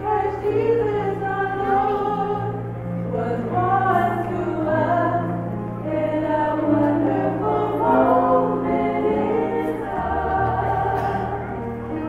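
A small choir singing a gospel-style song in harmony, over sustained low bass notes that change every couple of seconds.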